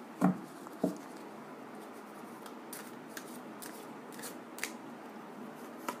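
Tarot cards being handled and drawn from the deck: two short knocks near the start, then scattered faint light clicks and flicks of card stock.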